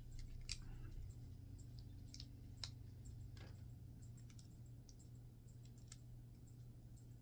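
Plastic Lego pieces being handled and pressed together: scattered faint clicks, several over a few seconds, over a steady low hum.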